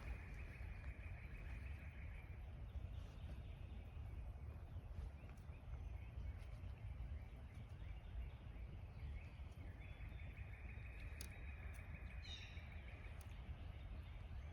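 Quiet lakeside outdoor ambience: a steady low rumble, a mid-pitched whirring that fades out about two seconds in and returns about ten seconds in, and a brief bird chirp about twelve seconds in.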